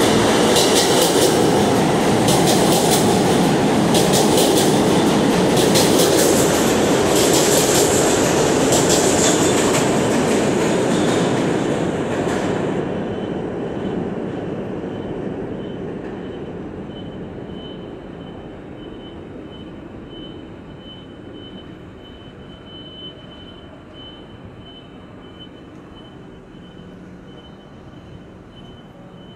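New York City subway train leaving the station, its wheels clattering over the rail joints with some high wheel squeal. The sound fades away from about twelve seconds in, leaving a faint steady hum with a thin whine.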